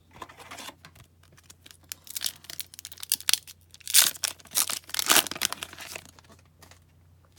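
A hockey card pack's plastic wrapper being torn open and crinkled in the hands, a run of crackling rips with the loudest about four and five seconds in.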